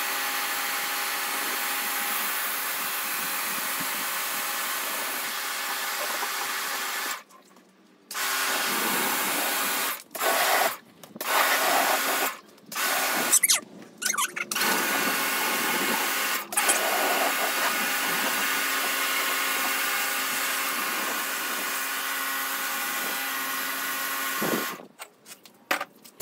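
Kärcher electric pressure washer running, its motor humming under the hiss of the water jet striking the ground. The motor cuts out for about a second a quarter of the way in, then stops and starts in a run of short bursts as the trigger is released and squeezed. It runs steadily again before cutting out in stutters near the end.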